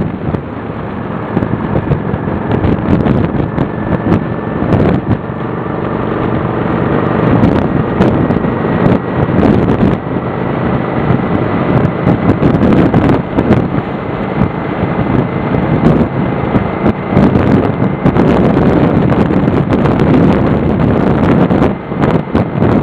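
Motorcycle engine running under way at road speed, heavily overlaid by wind buffeting on the microphone. The engine note and overall loudness build over the first several seconds, then hold steady.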